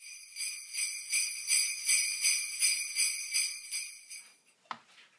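Sleigh bells shaken in a steady rhythm, about three shakes a second, fading out after about four seconds.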